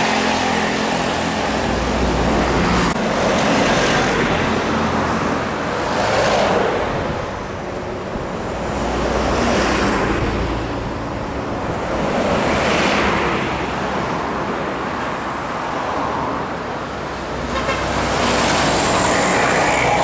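Road traffic passing close by: a light box truck, buses and motorcycles go by one after another, their engines and tyre noise swelling and fading every few seconds.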